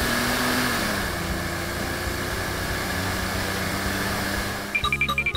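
Steady engine-like running hum with hiss as the toy Jeeps race along the pavement; its pitch dips slightly about a second in. Near the end, a bouncy children's music tune with short plucked notes cuts in.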